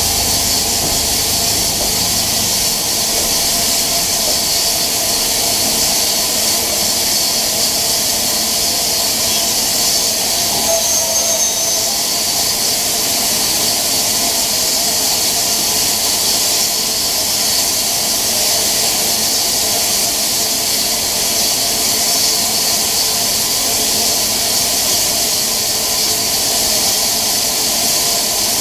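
BR Standard Class 9F 2-10-0 steam locomotive standing in steam, hissing loudly and steadily. A low rumble fades out in the first few seconds.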